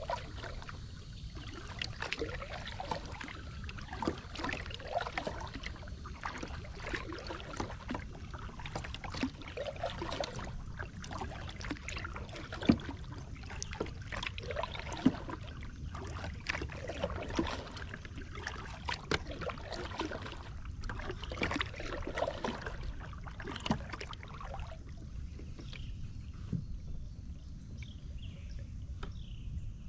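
Kayak paddling: the paddle blade dipping and splashing every second or two, with water trickling off it and a couple of sharp knocks about halfway. The strokes stop near the end, leaving only faint water sounds as the kayak glides.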